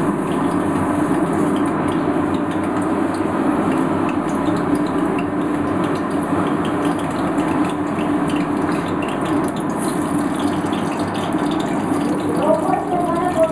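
Steady noise from a wok of oil heating over a gas burner, with slices of pointed gourd going into the oil near the end. A short wavering pitched sound is heard near the end.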